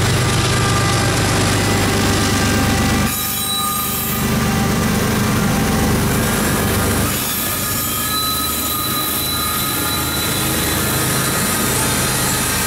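Loaded coal hopper cars rolling past on jointed track, their steel wheels squealing in thin, steady whines over the rumble of the wheels on the rail. The low rumble thins out about three seconds in.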